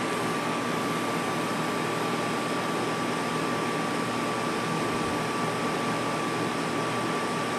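Butane torch lighter's jet flame hissing steadily while lighting a cigar, over a steady air-conditioner-like room noise with a faint constant whine. Near the end a small click, and the highest part of the hiss falls away.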